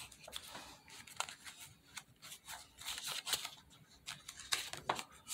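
Rustling handling noises: a string of short, crisp scrapes and clicks, like paper or objects being handled.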